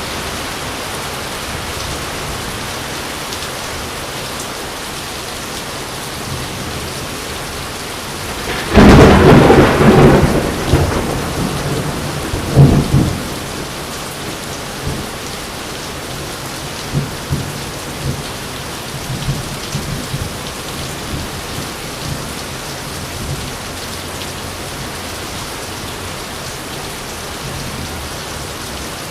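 Steady rain, with a sudden loud thunderclap about nine seconds in that rumbles away over a few seconds, a second sharp crack shortly after, and a few fainter rumbles later.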